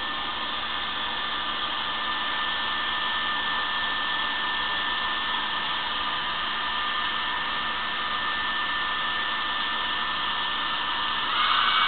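Small handheld hair dryer running steadily, a constant blowing whir with a faint motor hum, growing louder about a second before the end.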